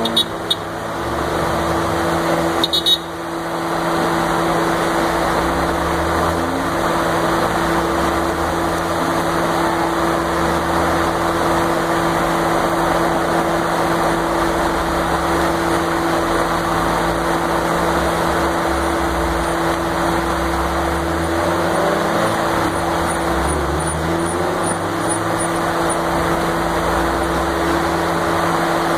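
Mazda MX-5 Miata roadsters driving slowly past one after another, their engines swelling and fading every few seconds. Under them runs the steady hum of an inflatable tube man's blower fan, with a short clatter about three seconds in.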